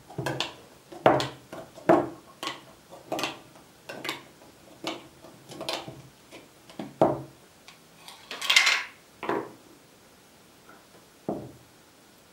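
Metal lid of a glass canning jar being pried up with a hand opener: a string of sharp metallic clicks about once or twice a second as the tool works around the rim. About eight and a half seconds in comes a longer, louder scraping rasp. Two lighter clinks follow.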